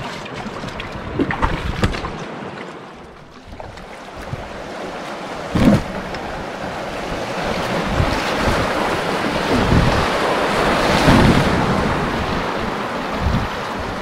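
Whitewater rushing around an open canoe running a rapid, with wind buffeting the microphone and paddle strokes splashing; the rush builds through the middle. A sharp knock about six seconds in.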